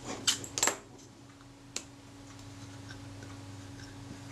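Small metallic clicks and short scrapes from the Rolleiflex Automat's focus knob being turned and the camera body handled: a couple of quick scrapes in the first second, then one sharp click a little under two seconds in. The knob is rubbing on its cover plate, which the repairer puts down to a bent knob or shaft.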